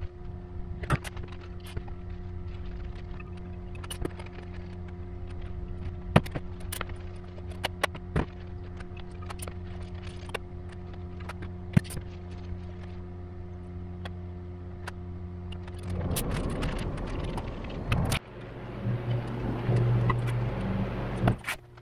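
Light metallic clicks and taps as bearing shells and aluminium engine-block parts are handled and wiped clean, over a steady low machine hum. About sixteen seconds in there is a couple of seconds of rushing noise, followed by heavier shuffling and scraping as the block halves are moved.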